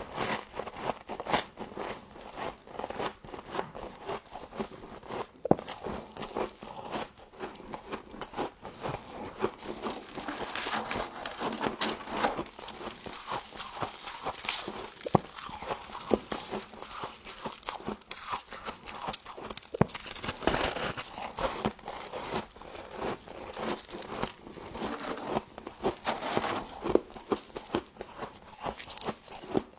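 A person biting into and chewing humidifier-grown frost, a dense, irregular run of crisp crunches and crackles.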